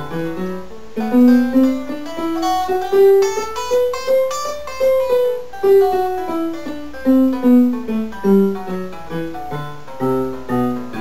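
A monophonic line of single notes picked on an electric guitar. The tuner turns them into MIDI notes that a keyboard sounds along with them. The line climbs note by note, comes back down, and starts up again near the end.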